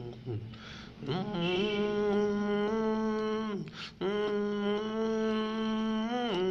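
A man humming a slow melody close into a microphone, holding long steady notes. He takes a quick breath in about half a second in and another just before four seconds in.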